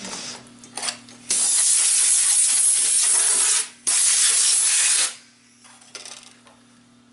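Compressed-air blow gun blowing chips off a milled part in a vise: two long hissing blasts, the first about two seconds, the second just over one, with a brief break between.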